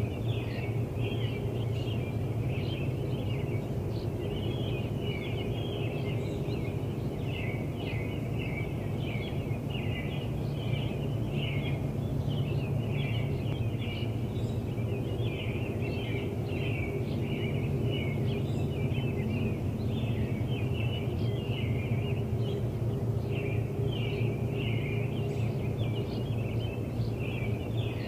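Birds chirping continuously over a steady low hum.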